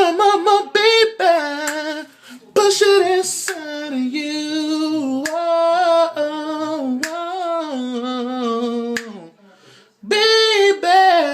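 A solo voice singing an R&B melody unaccompanied, in a high register. It holds long notes that bend and waver, in phrases split by short breaks, with no words made out. A few sharp clicks come in between.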